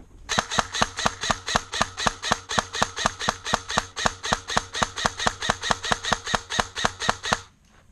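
Airsoft gun firing a long, steady string of shots, about five a second, stopping shortly before the end.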